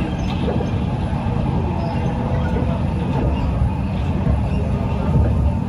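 Cabin noise of a Kawasaki Heavy Industries C151 metro train running on an elevated track: a steady, loud low rumble of wheels on rail and running gear.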